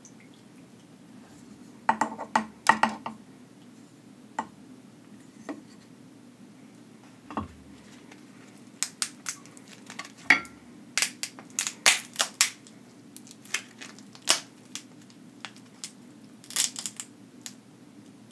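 King crab leg shell cracking and crunching as it is handled and worked apart at the joint by hand, close to the microphone: a scattering of sharp cracks and clicks, much more frequent after about nine seconds in, with a couple of duller knocks.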